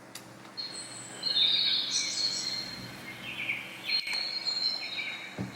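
Songbirds chirping and twittering, many quick high calls and trills overlapping, starting about a second in: a recorded bird-sound effect used as morning ambience.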